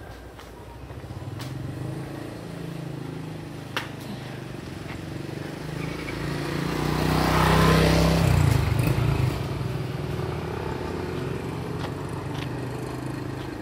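A motor vehicle's engine approaching and passing close by, building over several seconds, loudest about halfway through, then fading to a steady running sound.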